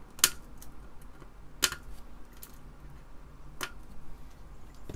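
Flush cutters snipping off excess component leads on a soldered circuit board: a few sharp clicks, the loudest about a quarter second in, another about a second and a half in and one more about three and a half seconds in.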